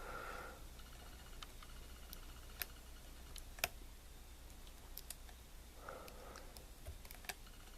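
Faint, scattered clicks of a lock pick and tension wrench working the pin stack of a small Brinks 35 mm brass padlock, a few separate ticks a second or more apart over a low steady hum.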